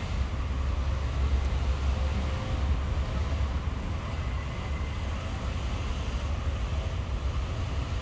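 Steady low rumble with a faint, even hiss over it, without any distinct events.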